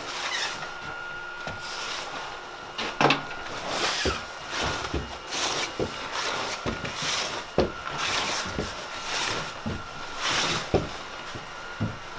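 People in CBRN protective suits and respirators moving through a narrow passage: a hissing rustle repeats about every second or so, with scattered footfalls and knocks.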